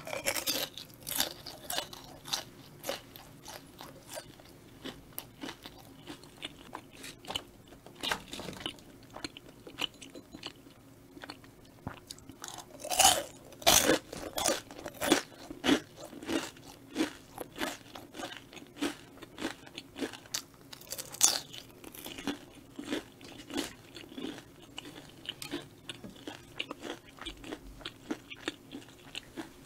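Close-miked crunching and chewing of crispy Korean fried snacks (twigim), many crisp crackling bites. The loudest crunches come a little before halfway and again about two-thirds through.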